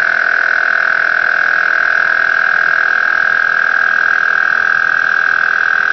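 ViAir portable tire compressor running steadily with a loud, even whine, inflating a car tire as it nears about 45 psi.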